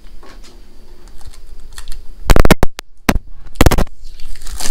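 Adhesive tape being peeled off in several short, crackling rips, the first about two seconds in and the last near the end.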